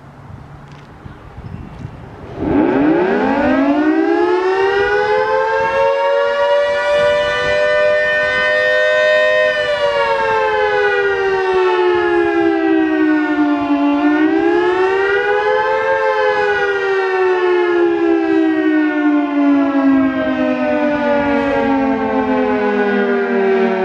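Federal Signal 3T22 three-tone outdoor warning siren sounding the attack signal on a test. It starts about two seconds in with a chord that climbs steeply, then slowly to a peak, falls, rises briefly again, then winds slowly down.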